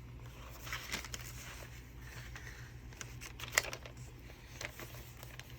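Paper rustling softly as the pages of a handmade junk journal are handled and turned, with one sharp click or tap a little past halfway. A steady low hum sits underneath.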